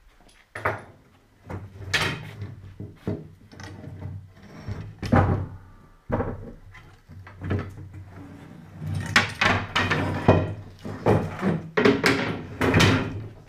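Irregular knocks, bumps and scraping as a sofa's welded metal frame, its wooden slats and a long board are shifted and lifted by hand, wood clattering against wood and metal.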